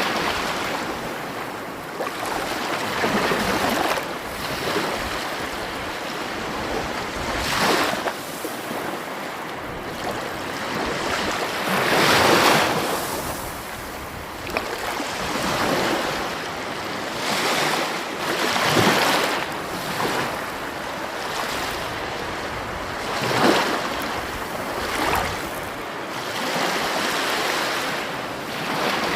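Sea waves breaking on a shore: a steady wash with a surge of breaking surf every few seconds, the loudest about twelve seconds in.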